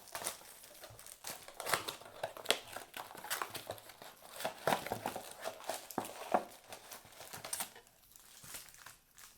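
Cardboard trading-card blaster boxes being torn open and their wrapped packs pulled out: irregular crinkling, tearing and rustling with scattered sharp crackles.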